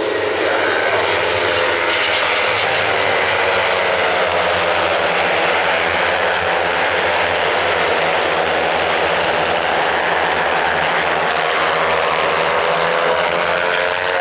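Several 300-class Kawasaki racing motorcycles running hard at high revs as the pack passes. Their engine notes overlap into one loud, steady drone with shifting tones.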